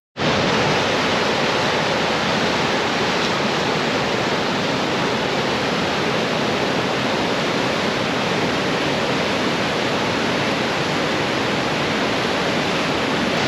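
Steady rush of white water from the Niagara River rapids.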